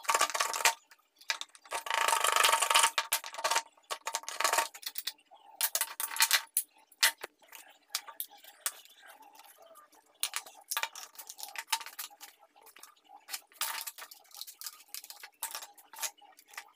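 A saw cutting through a small block of wood in two strokes of rasping noise over the first few seconds. After that come light clicks, taps and short scrapes of hand tools on a wooden workbench.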